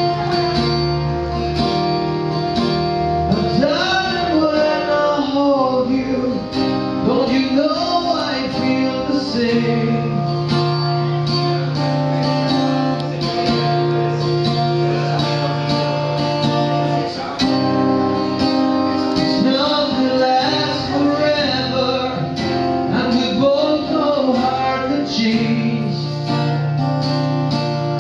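Acoustic guitar played in sustained chords, with a man singing over it from about three and a half seconds in.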